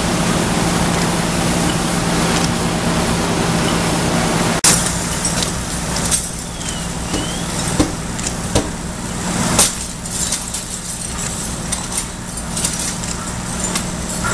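Fire engine running steadily with a low hum, under the hiss of water from hose streams. A sharp click about a third of the way in, after which the noise is lighter, with scattered knocks and clatter.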